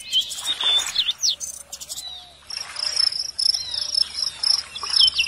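Birds chirping repeatedly, with an insect's high pulsing trill joining about halfway through, over soft splashes of hands swishing toys in muddy water.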